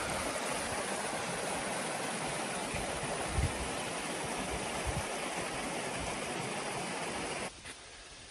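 Small creek rushing steadily over shallow riffles: an even water noise that cuts off abruptly near the end, leaving a much quieter background. A couple of low thumps sound in the middle.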